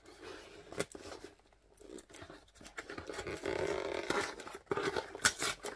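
Sellotape on a box being cut and torn open: scattered scrapes and rustles, a longer tearing scrape about three to four seconds in, then a run of sharp clicks near the end.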